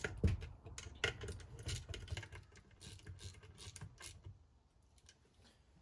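Irregular light metal clicks and rattles of a hand tool tightening small 10 mm bolts on a compressor's mounting bracket, stopping about four seconds in.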